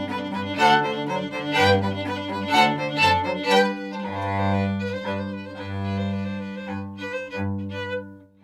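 Baroque orchestra playing live: bowed strings sound strongly accented notes about twice a second, then settle into long held chords for the last few seconds.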